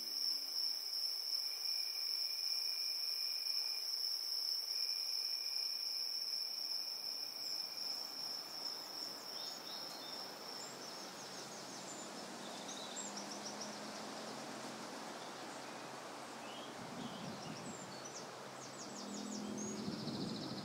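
Crickets chirping in a steady high trill, fading out about ten seconds in as birds start chirping and tweeting; the birdsong gets busier near the end.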